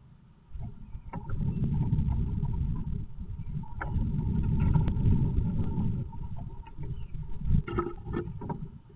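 Female great tit shuffling and working the moss and grass of her nest against the wooden floor of the nest box, heard close as a muffled rustling rumble. It comes in two long spells, then a few sharp taps and scratches near the end.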